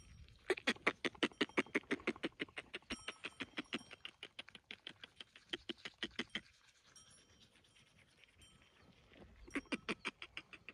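Sheep licking coarse salt from a person's palm: a fast, even run of licks at about six a second for about six seconds, a pause, then a shorter run near the end.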